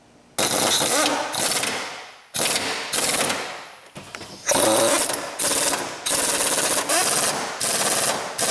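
Impact wrench hammering in a string of short bursts, about seven, driving down and tightening the engine mount bolts.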